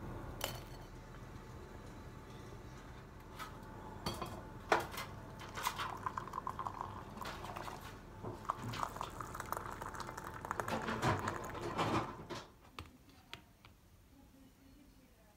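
A few clinks of a ceramic plate, then liquid poured into a ceramic mug for several seconds.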